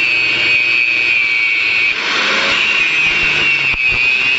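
Handheld angle grinder with a cut-off disc cutting through a metal water pipe: a loud, steady high whine with the grinding hiss of the disc in the steel, easing briefly about two seconds in.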